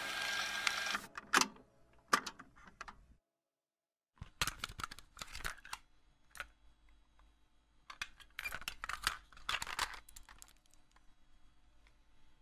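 Background music cuts off about a second in. Then come scattered sharp clicks and short rustling noises, with a brief total dropout in between.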